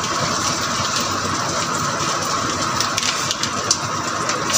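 Chopped onion and garlic sizzling in hot oil in a wok under freshly added tomato sauce: a steady hiss with scattered small crackles.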